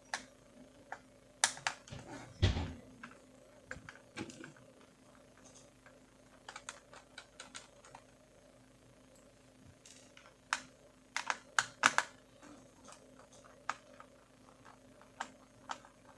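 Small screwdriver clicking and scraping on the screws and plastic bottom case of a Toshiba Satellite A210 laptop as small screws are undone: irregular sharp clicks, some in quick clusters, with a dull knock about two and a half seconds in.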